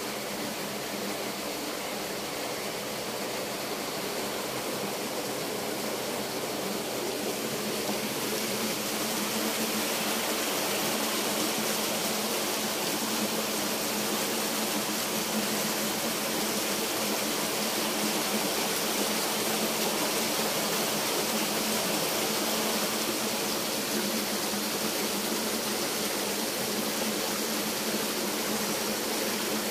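Small stream running over stones, a steady rushing burble of water that grows a little louder after about ten seconds.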